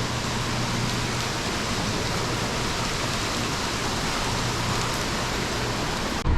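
Niagara Falls' falling water heard as a steady, dense rushing roar, which gives way abruptly near the end.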